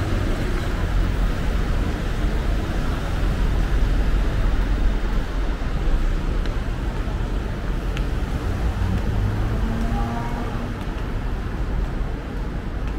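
Steady road traffic noise on a busy city street: a continuous low rumble of passing vehicles.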